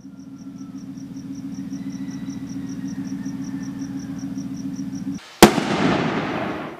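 A steady low hum, pulsing with a faint high tick about five times a second, cuts off abruptly. A moment later a single loud firework bang goes off, and its rush of noise fades over about a second before cutting off.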